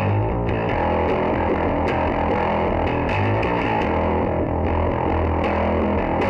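Electric guitar played through a Kink Pedals Absolution Fuzz pedal: thick, sustained fuzz-distorted chords with a strong low end, picked again every second or so.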